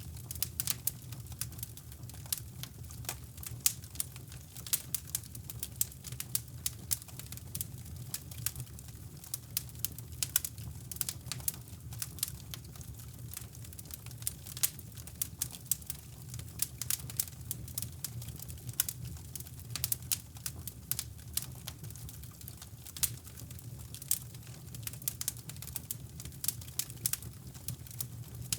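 Wood fire crackling in a fireplace: many irregular sharp pops and snaps over a steady low rumble of brown noise.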